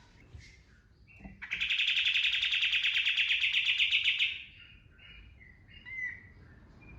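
A kapas tembak songbird singing: soft scattered chirps, then about a second and a half in a loud, rapid machine-gun trill lasting about three seconds (the 'tembakan' burst), followed by softer chirps again.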